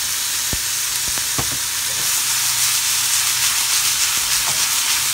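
Bean sprouts sizzling as they fry in a frying pan while being stirred, a steady high hiss with a few light knocks against the pan.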